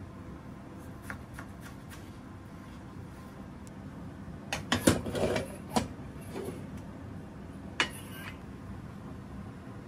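A kitchen knife slicing cucumber on a plastic cutting board, with a few light taps of the blade on the board. Halfway through comes a louder clatter of kitchenware being handled, and near the end one sharp knock.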